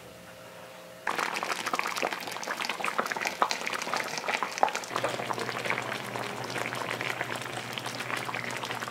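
Tilapia simmering in a wok: the cooking liquid, coconut milk by the end, bubbling and popping steadily, starting suddenly about a second in. A low steady hum joins about halfway.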